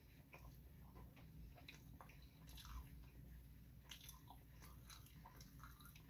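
Faint chewing of a mouthful of hamburger: irregular soft clicks and smacks of the mouth.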